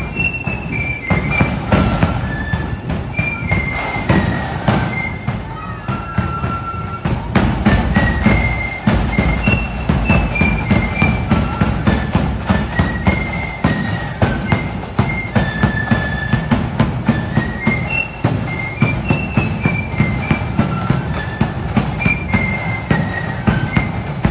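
Marching flute band playing a tune: massed shrill flutes carrying a quick melody over a steady, heavy drumbeat.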